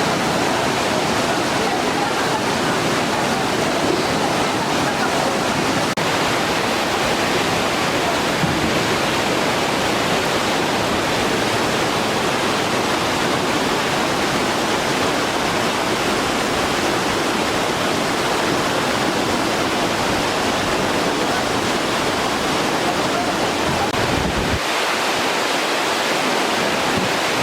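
Fast-flowing floodwater rushing steadily. The low rumble under the rush drops away near the end.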